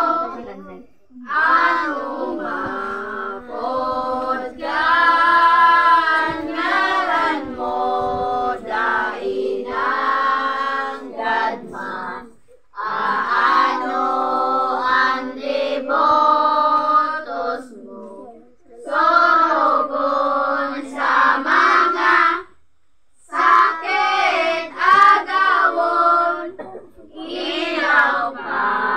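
A group of children's voices singing a devotional hymn together without accompaniment, in long phrases broken by a few short pauses.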